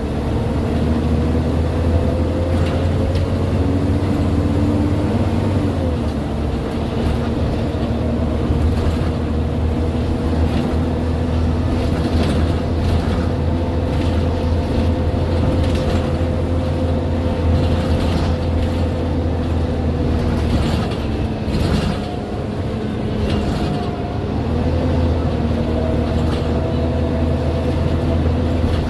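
Scania OmniDekka double-decker bus under way, heard from the upper deck: the diesel engine and driveline run with a steady low drone and a whine that holds its pitch. About three-quarters of the way through the sound briefly drops and eases off, then climbs again as the bus pulls away.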